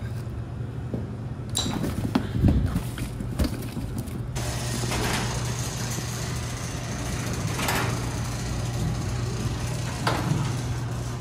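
Orange extension cord being handled with a few knocks and rattles. About four seconds in, an electric garage door opener starts: a steady motor hum and rumble as the sectional door rolls up.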